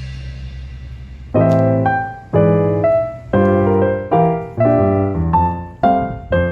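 Background music: a held chord fades out, then from about a second and a half in, piano chords are struck in a steady rhythm, each ringing and decaying.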